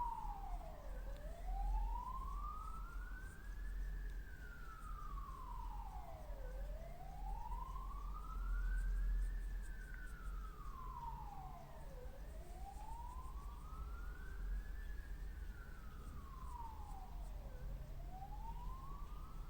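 A siren wailing, its pitch rising slowly and falling again about every five and a half seconds, over a low rumble.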